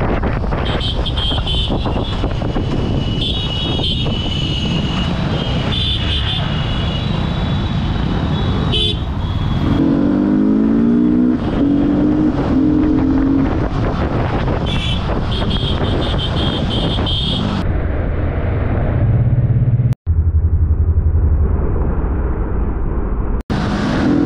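Yamaha R15 sport motorcycle's single-cylinder engine running with wind and road noise as it rides through city traffic. Other vehicles sound their horns in several short bursts. The sound drops out abruptly twice near the end.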